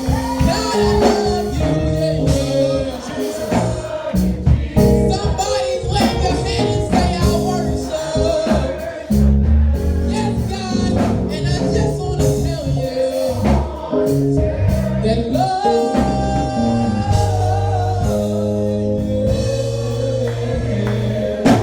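Live gospel worship music: a singer, with voices that may be a choir, over organ or keyboard, bass and drums, with a steady beat.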